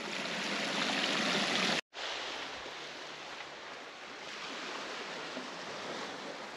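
Small freshwater stream trickling across the beach sand and seaweed, a steady rushing gurgle that grows a little louder, then cuts off abruptly about two seconds in. A quieter, even rushing noise follows.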